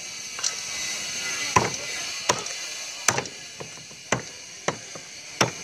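Sharp knocks, about eight of them at uneven intervals, over a faint steady hiss.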